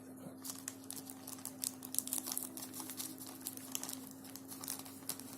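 Hands opening a courier package: the plastic packaging crinkles and rustles, with many quick light clicks and scratches.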